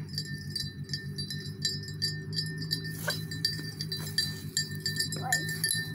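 Wind chimes tinkling with light metallic clinks and long, high ringing tones. A goat bleats faintly near the end.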